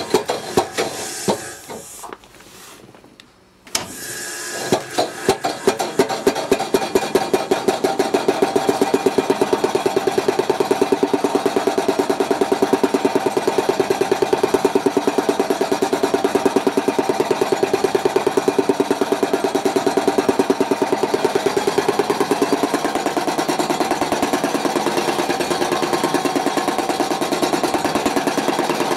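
Cricket bat knocking-in machine running, its mallet head striking the face of the bat in a rapid, steady hammering, compressing the willow to prepare a new bat for play. The knocking stops briefly about two seconds in, then resumes.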